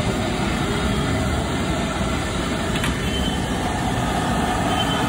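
Steady, loud rumbling noise of a busy roadside food stall, with no single event standing out.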